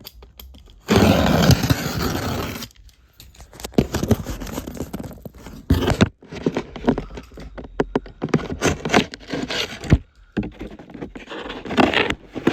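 A cardboard shipping box being torn open: a loud ripping tear about a second in, then irregular scraping, rustling and knocks of cardboard and packaging being handled.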